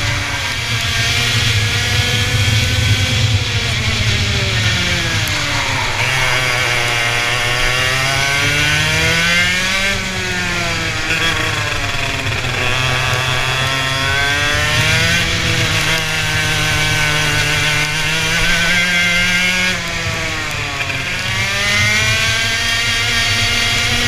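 Racing engine under hard throttle, its pitch climbing and then dropping again several times as it accelerates and backs off around the track.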